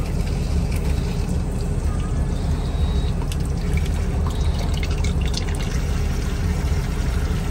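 Water from an airliner lavatory's push-button tap running and splashing into the washbasin, with scattered sharp splashes, over the loudest sound: the aircraft's steady low cabin drone.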